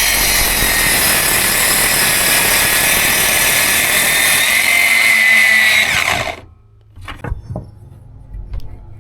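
Power tool running loud and steady while cutting or drilling wood, stopping suddenly about six seconds in, then a few light knocks of wood being handled.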